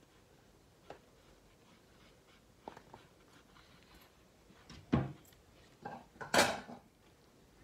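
A few light knocks and clatters of small objects handled on a tabletop, like cutlery or dishes. The louder ones come in the second half, the loudest a short scrape about six seconds in.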